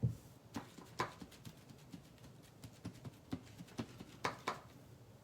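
Faint, irregular light taps and small knocks of hands and craft things on a work surface, about ten in all, with a pair of sharper ones a little after four seconds in.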